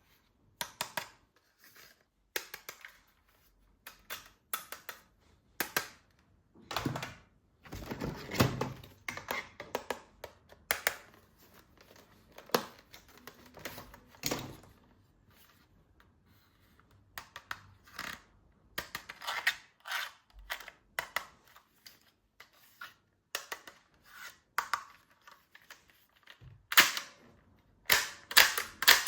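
Plastic toy guns being handled: scattered clicks, knocks and rattling of plastic parts. A quick run of loud, sharp clicks comes near the end.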